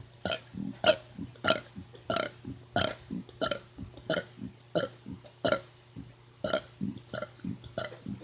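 A man burping on purpose in a quick series, about a dozen short burps roughly two-thirds of a second apart.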